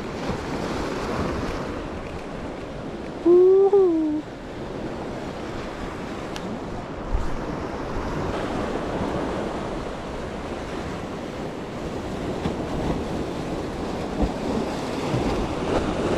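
Ocean surf washing on the jetty rocks, a steady wash of noise, with wind buffeting the microphone. A little over three seconds in, a short, loud pitched call rises and falls for about a second.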